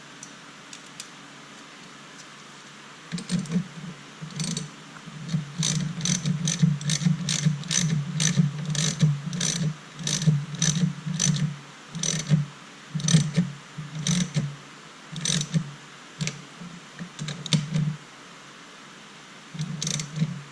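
Ratchet wrench with a 10 mm socket clicking in short repeated strokes as it tightens a nut on the battery terminal. The clicking starts about three seconds in, goes on in uneven bursts, pauses briefly, and starts again near the end.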